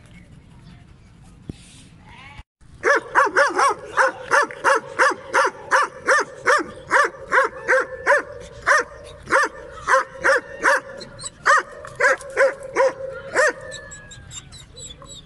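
Kohati Gultair dog barking rapidly and steadily, about two to three barks a second, starting about two and a half seconds in.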